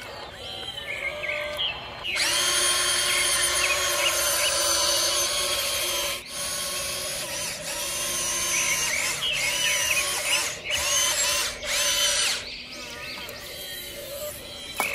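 A small electric motor whirring loudly and steadily for about ten seconds, with a few brief pauses, typical of an RC construction model's gear motor driving. Softer chirping sounds are heard before and after it.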